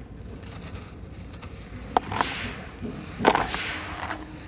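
White sand-cement chunks crushed by hand: two sharp cracks, about two seconds in and again about a second later, each followed by a gritty hiss of crumbs and sand falling onto the heap.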